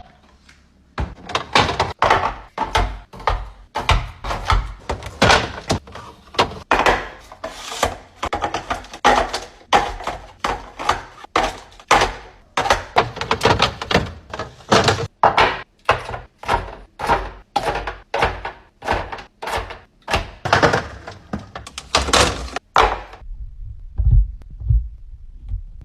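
A quick run of hard knocks and clacks, two or three a second with brief rustling between, as objects are set down and handled; it stops shortly before the end.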